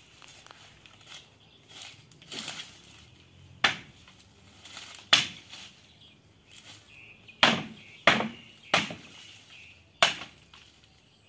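Wooden boards and frames of an old chicken coop knocking and clattering as it is pulled apart by hand: about six sharp knocks at irregular intervals, with a scrape shortly before the first.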